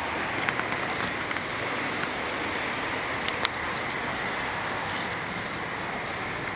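Steady outdoor background noise, an even hiss with a faint high hum running through it. Two sharp clicks come close together a little over three seconds in.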